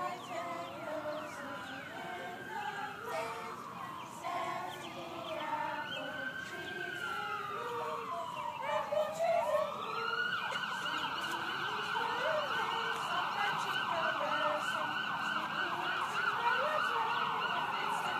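Emergency vehicle siren: a slow wail rising and falling in pitch for about ten seconds, then switching to a fast yelp that runs on at a steady higher pitch.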